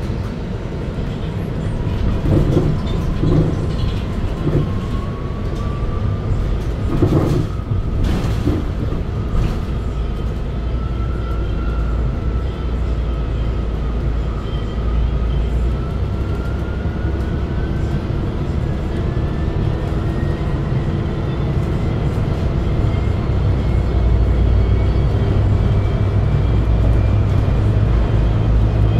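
Inside a MAN Lion's City Hybrid bus as it accelerates: the electric drive's whine rises slowly and steadily in pitch over a low running rumble. A couple of short knocks come about seven and eight seconds in, and the sound grows a little louder near the end.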